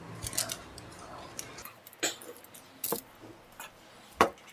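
A handful of short, sharp clicks and clinks of cutlery against a plate as Maggi noodles are eaten.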